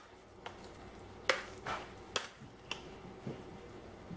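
A utensil scraping and tapping inside a clear plastic food processor bowl as chopped cauliflower is scooped out into a glass bowl: about six light, scattered knocks, the loudest a little over a second in.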